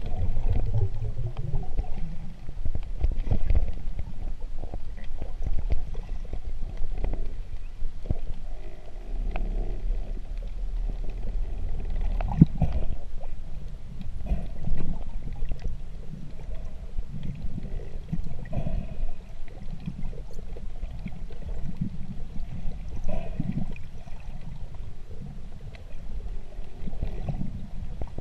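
Muffled underwater sound picked up by a submerged camera: a low, churning rumble of moving water with scattered faint clicks and a sharper knock about twelve seconds in.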